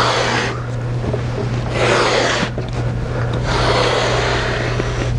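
The blade head of a straight-edge rail cutter, pushed by hand along its rail and slicing through foam core board. It comes as several long, noisy pushes that swell and fade, over a steady low hum.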